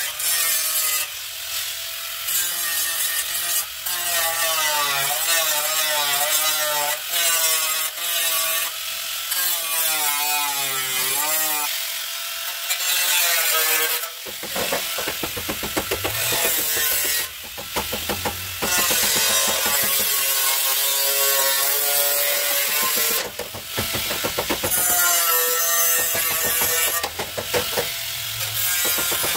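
Angle grinder grinding and cutting sheet steel on a car's rusted sill and a loose steel panel. Its whine wavers up and down in pitch as it is pressed into the metal, with a few short breaks where it is lifted off.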